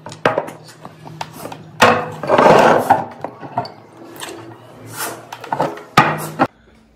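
Glass tumblers of coloured water handled on a wooden table: a few sharp knocks as they are set down, with longer scraping and rubbing sounds between.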